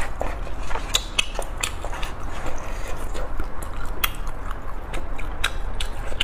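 Close-miked chewing of spicy instant noodles, with many short, sharp, irregular wet mouth clicks.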